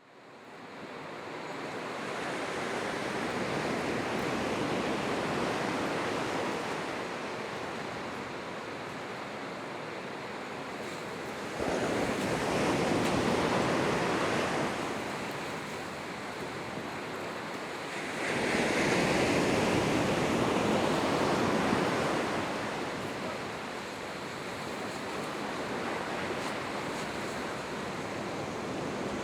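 Ocean surf: waves washing in and breaking, fading in from silence at the start. Louder waves break about 12 and 18 seconds in, and another swells near the end.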